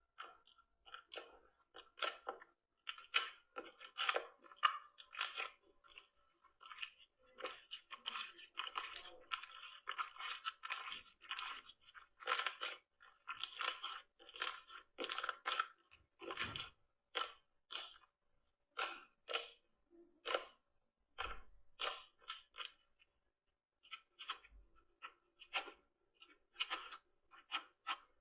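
Slime being squeezed and pressed by hand, giving a dense, irregular run of crunchy crackles and pops.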